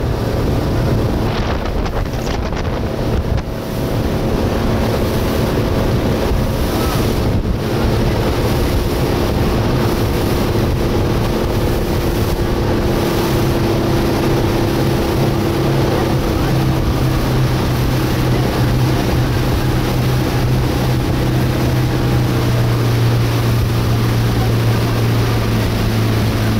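Motorboat engine running with a steady low hum over the rush of water along the hull and wind on the microphone. About two thirds of the way through, the engine note drops slightly and stands out more as the boat slows.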